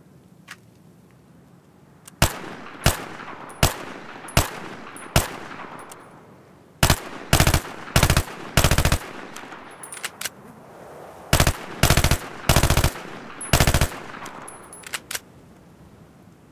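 Gunfire sound effect: five single shots evenly spaced, then several short bursts of rapid automatic fire in two groups, each shot trailing off in echo, with a few faint clicks near the end.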